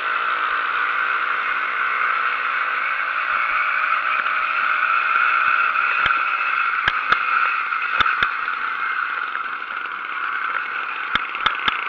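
80cc two-stroke motorized-bicycle engine running steadily under way, a continuous noisy drone. Several sharp clicks or rattles come in pairs and groups past the middle and again near the end.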